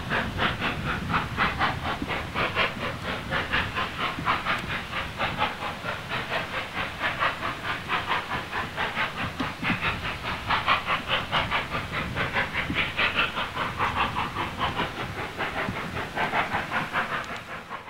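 J94 'Austerity' 0-6-0 saddle-tank steam locomotive working hard up a steep gradient with a heavy train: a fast, even run of exhaust beats, about four a second, with steam hiss.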